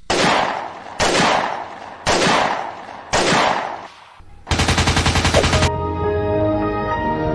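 Four heavy gunshot-like blasts about a second apart, each ringing out as it fades, then a rapid burst of machine-gun fire lasting about a second. Music with held tones comes in after it.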